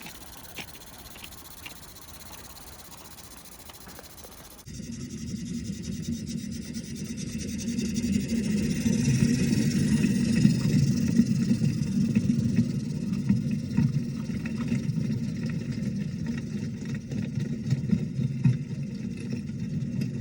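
Small gas-fired Mamod Brunel live steam locomotive running, a dense rapid chuffing rumble with steam hiss that starts suddenly about five seconds in. Before that, only a faint hiss with a few light ticks.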